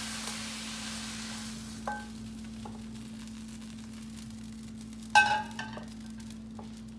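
Leftover sizzle in the hot pan fading away with the heat turned off, then utensils clinking on cookware: a light ringing clink about two seconds in and a louder clatter of clinks about five seconds in. A steady low hum runs underneath.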